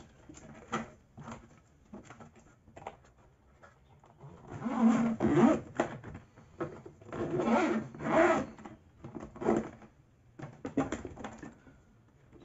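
Zippered hard-shell camera case being shut: a few light handling clicks as the lid comes down, then the zipper drawn around the edge in several noisy pulls, the longest about four and a half and seven seconds in.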